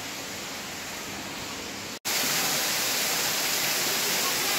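A steady hiss that drops out briefly about two seconds in and comes back louder as a steady rush of falling water from a waterfall.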